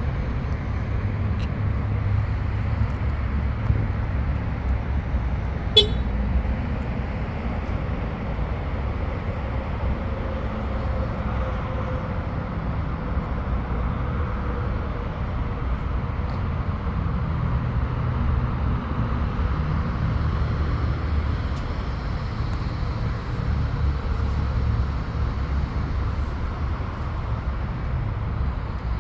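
2021 Honda HR-V Sport AWD being driven: a steady low rumble of engine and road noise that holds level throughout, with a single sharp click about six seconds in.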